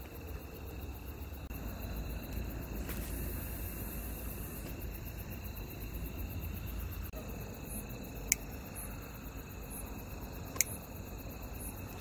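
Crickets chirring steadily at night over a low rumble, with two sharp clicks in the second half.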